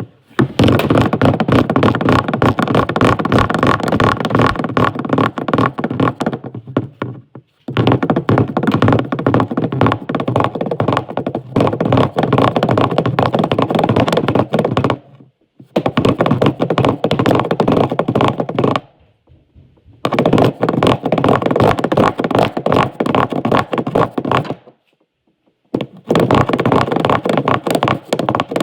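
Dense, rapid crackling and knocking in runs of several seconds, broken by short pauses of about a second.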